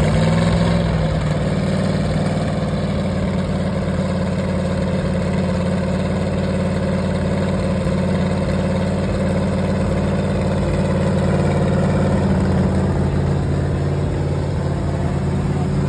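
Freshly built Mopar 440 big-block V8 running steadily through open exhaust pipes with no mufflers, during its break-in run on an engine stand.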